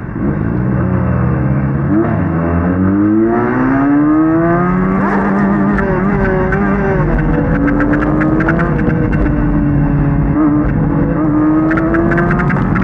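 Benelli 300 motorcycle engine accelerating hard, its note climbing for about four seconds, then holding a steady high pitch with small rises and dips.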